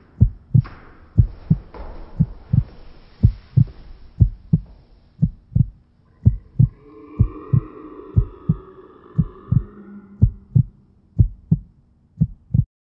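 Heartbeat sound effect: a steady lub-dub thumping about once a second that cuts off suddenly near the end. A hiss sits under it over the first few seconds, and a drawn-out wavering sound rises over it about halfway through.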